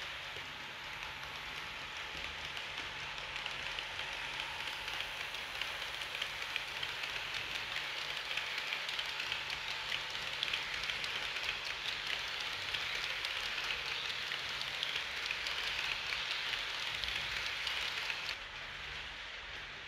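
HO-scale model train, an Re 4/4 IV electric locomotive hauling a rake of passenger coaches, rolling along the track as a steady fine rattle of small wheels on the rails. It builds as the coaches pass close and drops off suddenly near the end.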